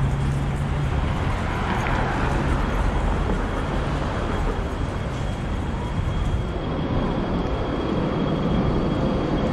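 City street ambience beside a busy road: a steady rumble of traffic, with a faint thin high tone held throughout.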